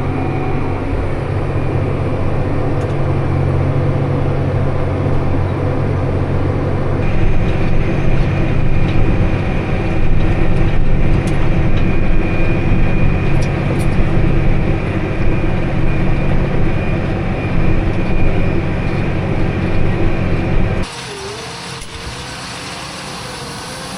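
Tractor engine running steadily while baling hay. The sound steps up slightly about seven seconds in, then drops suddenly to a quieter, steady engine hum about three seconds before the end.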